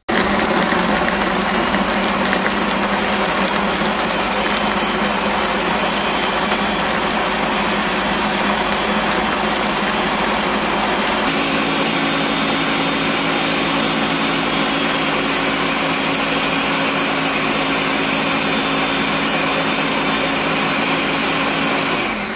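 Ninja countertop blender running at high speed, blending herbs and water into a green puree: a loud, steady motor whir that starts abruptly, with a steady low hum joining about halfway. It begins to wind down right at the end as it is switched off.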